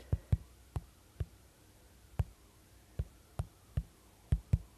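About a dozen light, irregular taps from typing on a tablet's touchscreen keyboard, a few letters in quick succession and then pauses.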